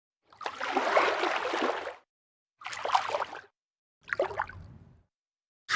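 Homemade dolphin sound effects: three separate bursts of hissy noise with short wavering chirps, each under two seconds, cut apart by dead silence, with a fourth starting just at the end.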